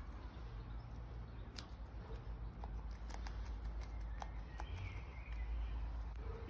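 Scattered soft clicks and taps of a peahen's beak pecking and snapping at a leafy stalk, over a low steady rumble.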